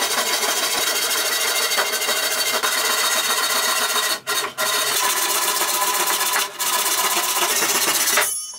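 Japanese handsaw crosscutting a thick sipo hardwood plank in quick, continuous strokes, with a couple of brief pauses. The sawing stops suddenly a little after eight seconds in.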